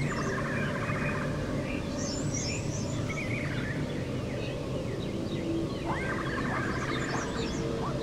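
Several birds chirping and calling, with a few quick rising whistles around six to seven seconds in, over a steady low hum.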